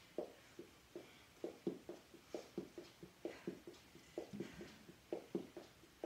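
Sneakers tapping on an exercise mat and floor during mountain climbers: soft thumps, often in quick pairs, a few a second, as the feet step in and out.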